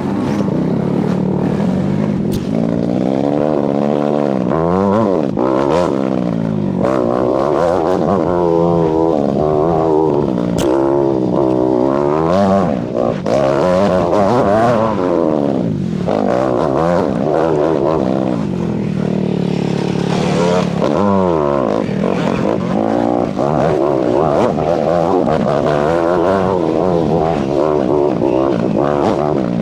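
Enduro motorcycle engine revved up and down over and over, its pitch rising and falling every second or two, as the bike is worked through heavy going.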